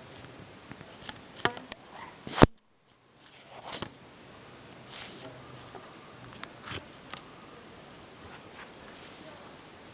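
Scattered sharp clicks and light knocks with some rustling. The loudest click comes about two and a half seconds in and is followed by a moment of dead silence, with softer clicks after it.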